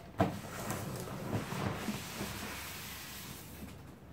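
A cardboard box being handled and slid up off a PC case packed in foam and a plastic bag: a knock just after the start, then scraping cardboard and rustling plastic that fade toward the end.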